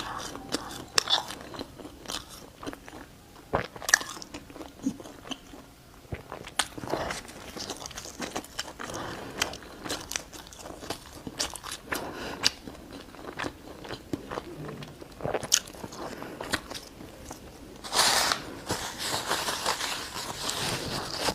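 Close-miked eating: bread being bitten into and chewed, with frequent sharp crunches and a louder, denser run of crunching near the end.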